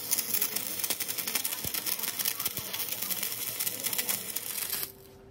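Dense, rapid crackling from metalworking that cuts off suddenly near the end, leaving a faint steady hum.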